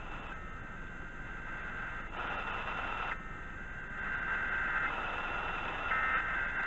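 Hiss and static of a weak AM radio signal, with faint steady tones that come and go every second or two.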